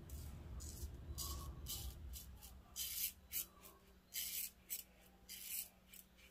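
Double-edge safety razor with a Gillette Rubie blade cutting through two days' stubble under lather. It makes a run of short, faint scraping strokes that begin about two seconds in.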